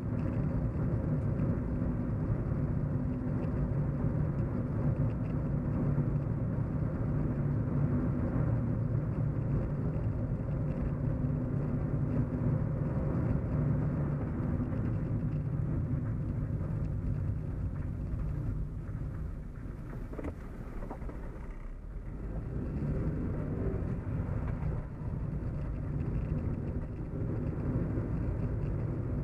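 Steady low hum and rumble of a moving car, heard from inside the cabin. It eases off for a few seconds about two-thirds of the way through, then comes back.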